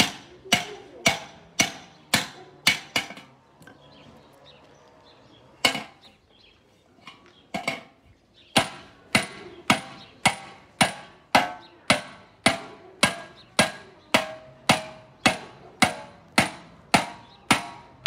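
Hand hammer striking a copper pot on an iron stake: sharp, ringing metal blows at an even pace of about two a second. The blows stop for about five seconds a few seconds in, with one or two lone strikes, then resume steadily.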